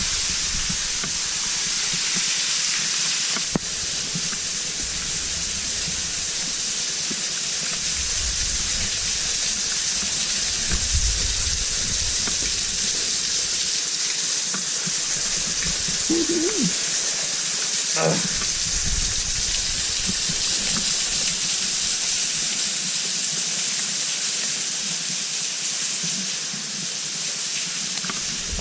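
Cave waterfall splashing down a pit, a steady hiss of falling water and spray.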